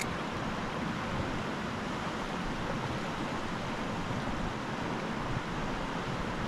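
Fast mountain river rushing over rocks and riffles, a steady even roar of water.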